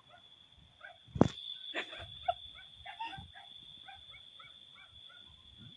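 Crickets chirring in a steady high tone, with a sharp knock about a second in and a few softer knocks from the microphone being handled.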